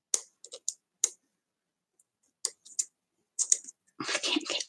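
Scattered short, sharp clicks and taps of small objects being handled, about a dozen spread unevenly, with a denser rustling cluster about four seconds in.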